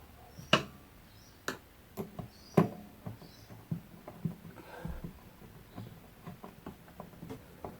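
Irregular small clicks and taps of a screw being fitted back into a gas strut's metal bracket by hand, with light scratching in between. The two loudest clicks come about half a second in and about two and a half seconds in.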